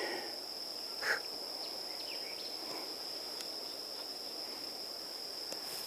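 Insects, cricket-like, droning one steady high-pitched note, with a short chirp about a second in.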